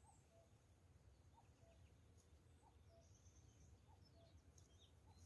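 Faint outdoor birdsong: a bird repeats a two-note call, a higher note then a lower one, about every second and a half, with small birds chirping high above it over a low steady background hum.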